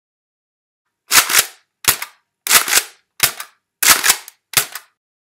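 Six sharp gunshot-like bangs, each a quick double crack, coming about every 0.7 s: a shot sound effect rather than a live recording.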